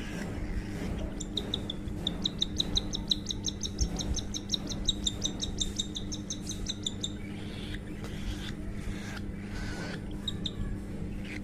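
Baby cockatiel chirping rapidly, about seven high chirps a second for some six seconds, then a short pair near the end: the begging calls of a chick being hand-fed.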